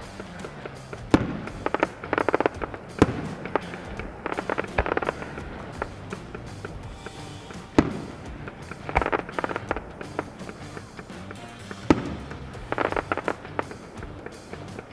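Fireworks going off: sharp single shell bursts about a second in, at three seconds, near eight and near twelve seconds, with spells of rapid crackling between them, over steady background music.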